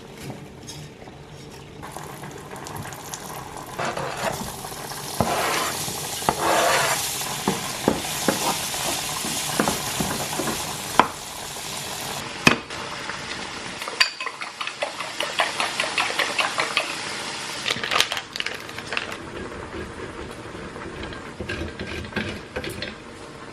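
Food sizzling in a pan, with a utensil stirring and scraping against it; a run of quick clicks and scrapes comes around the middle.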